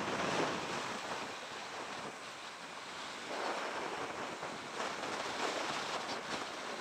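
Wind rushing over the microphone while riding a motorcycle: a steady, noisy rush that swells a little about three seconds in.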